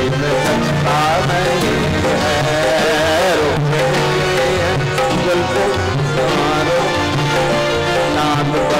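Live ghazal music: tabla playing a steady rhythm under a sustained melodic accompaniment. About three seconds in, a melody line bends and wavers in pitch.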